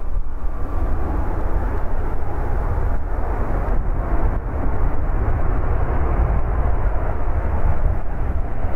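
Jet engines of a Boeing 737-8 MAX (CFM LEAP-1B turbofans) running as the airliner rolls down the runway: a steady, loud jet roar with a deep rumble underneath.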